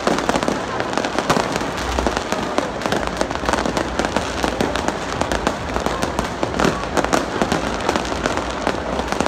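Aerial fireworks bursting overhead in a continuous barrage: many overlapping bangs and crackles, several a second, without a pause.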